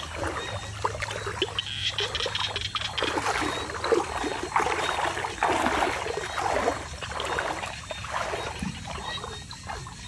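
Water sloshing and splashing in uneven surges.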